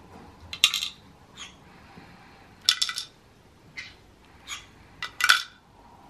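Light clinks and clatters of small plastic toy pieces knocked about by a cockatiel, in about seven short, separate bursts.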